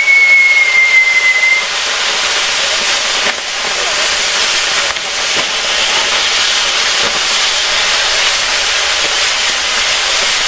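Fireworks castle burning: the spinning fire wheels and fountains on the tower give a loud, steady hiss. A thin whistle slides a little down in pitch and stops about a second and a half in.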